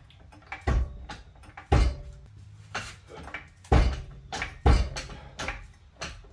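Heavy metallic clunks and knocks, four loud ones about a second apart with lighter knocks between, as a new front strut assembly is jacked up into place under the car.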